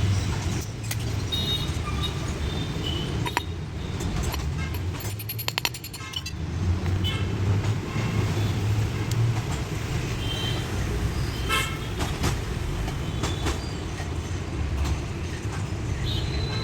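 Steady low rumble of passing road traffic, with short car horn toots now and then. A quick run of sharp clicks about five seconds in.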